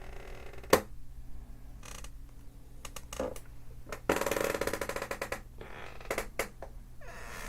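A chair creaking in irregular bouts. About a second in there is a sharp crack, then a few short creaks, then a long stuttering creak lasting over a second in the middle. A couple more short creaks come near the end, over a steady low hum.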